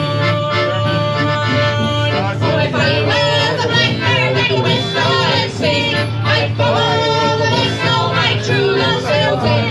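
Live folk band playing: accordion, fiddle, guitar and sousaphone, with held chords for the first couple of seconds and then a wavering melody line over a steady bass.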